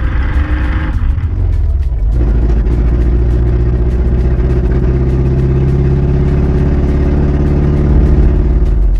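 1986 Ford Ranger's 2.3-litre four-cylinder engine running while the truck is driven, a steady drone that changes pitch about two seconds in and then holds steady.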